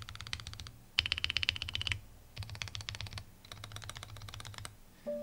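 Typing on a KBDcraft ADAM keyboard with a LEGO-brick housing and lubed linear switches. There are four quick runs of rapid keystrokes with short pauses between them, the second run the loudest.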